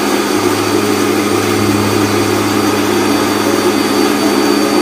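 Countertop blender running steadily, grinding a dry roasted spice mix into powder: a loud, even motor hum with a grinding rush over it.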